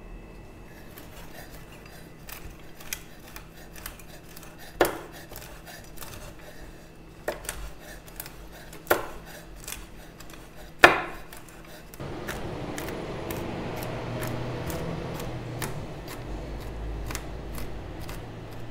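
Kitchen knife chopping almonds on a wooden cutting board: scattered taps of the blade on the board with a few sharp strokes, then, about two-thirds of the way in, quicker and more regular chopping as the blade works through the pile of nuts.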